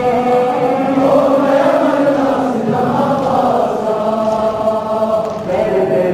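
Many men's voices chanting a Muharram mourning lament (nauha) together in long, drawn-out notes.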